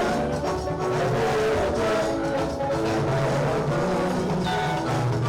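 Music with held notes over a steady bass line and drum beat.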